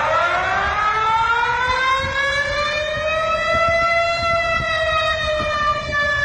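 Malaysian emergency warning siren sounding one long wail over a low rumble. Its pitch climbs slowly for about four seconds, then starts to fall.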